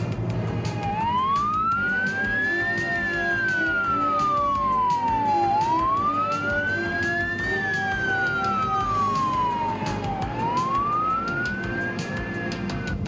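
Emergency siren in a slow wail, rising and falling in pitch about every four and a half seconds, starting about a second in.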